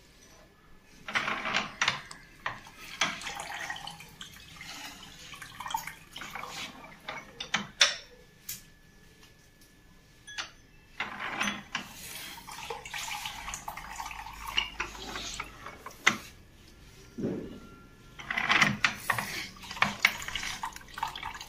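A manual lever-arm citrus juicer is loaded and worked with sweet lime halves. Its metal cone and cup and a strainer bowl clatter and knock, and juice trickles into a cup. The handling comes in three spells: about a second in, around eleven seconds and near the end.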